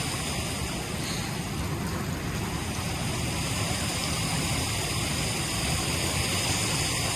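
Steady rush of flowing river water, an even hiss with a low rumble underneath.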